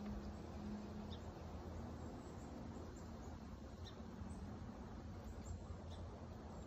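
Quiet marsh ambience: a steady low rumble with a few faint, very short high chirps every second or two, and a low hum that fades out in the first couple of seconds.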